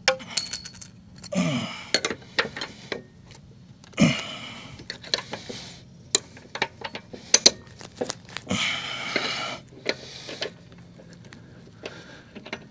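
Steel mower blade and its mounting hardware being handled onto a spindle of a Kubota 60-inch mower deck: scattered metal clinks and taps, with a few short scraping stretches about one and a half, four and nine seconds in.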